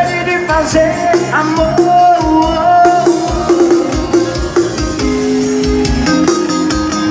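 Live band playing an instrumental passage between sung lines, with electric guitar and a steady drum beat of about two thumps a second.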